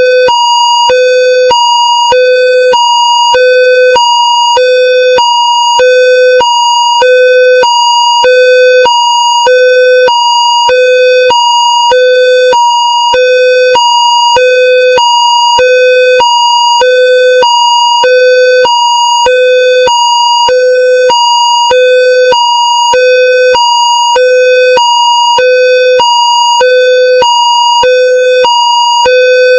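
Indonesian railroad level-crossing electronic warning bell sounding continuously: a loud two-tone signal alternating between a lower and a higher tone, about one pair per second, warning that a train is approaching.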